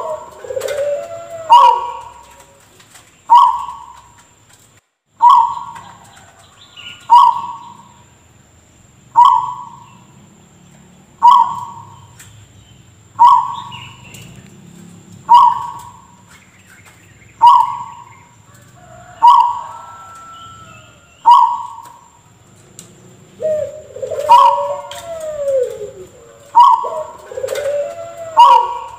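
Zebra dove (perkutut) giving a short, abrupt, cough-like call about every two seconds. Lower curving cooing notes come in near the start and again for the last few seconds.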